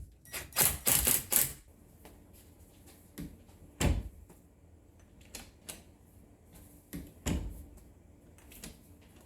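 A series of sharp clicks and knocks: a rapid cluster in the first second and a half, then single knocks every second or so, two of them louder.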